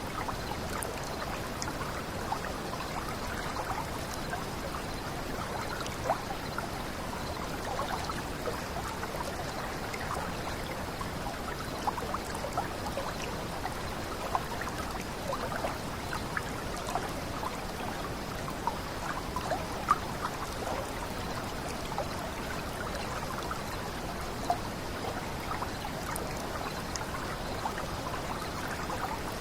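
Small water cascade running steadily, a constant splash and trickle with many small plinks of falling drops.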